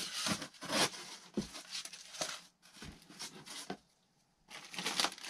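Cardboard box packing being handled: intermittent rustling, scraping and tearing of cardboard and plastic wrap, with a short pause about four seconds in before the rustling picks up again.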